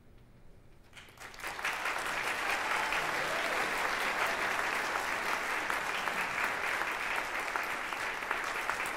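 Audience applauding: the clapping starts about a second in and holds steady.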